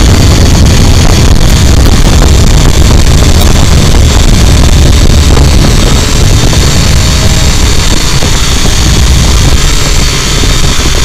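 Small quadcopter drone's motors and propellers running close to its onboard microphone: a loud, steady, distorted whine, with propeller wash buffeting the mic.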